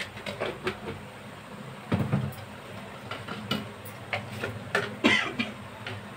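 Scattered clicks and clinks of steel kitchen utensils and containers being handled, with a dull knock about two seconds in, over a steady low hum.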